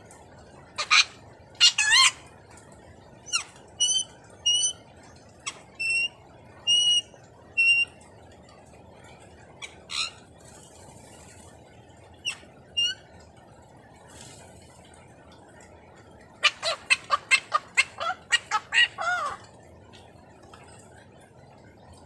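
Caged blue-naped parrot and racket-tailed parrot calling: harsh screeches mixed with short whistled notes, then a quick run of about ten screeches near the end.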